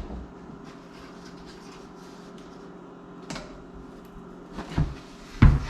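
Knocks and thuds as a worn exterior door is handled and shifted, a few scattered bumps, the loudest near the end, over a steady low hum.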